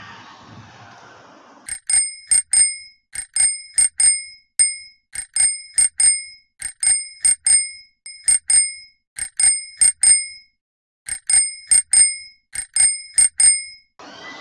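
Small bicycle bell on a toy bicycle rung over and over, in quick bursts of two or three bright dings, starting about two seconds in.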